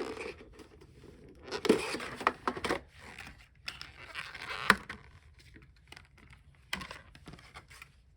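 Plastic wrapping being torn and crinkled off a Pokémon card tin, in two loud rustling stretches with a few sharp clicks and taps among them.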